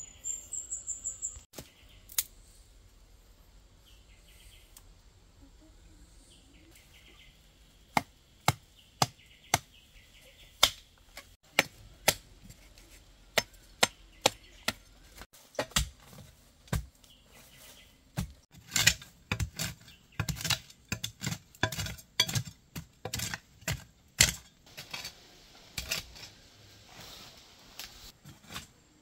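Machete chopping at roots and earth, single sharp strikes about every half second, then quicker, heavier strikes of a hoe digging into the soil from about halfway through.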